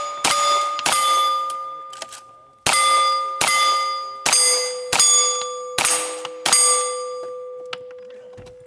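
A rapid string of about eight gunshots at cowboy action steel targets, each hit answered by the clear ring of a struck steel plate. The shots come in two runs with a short pause about two seconds in, and the ringing dies away slowly after the last one.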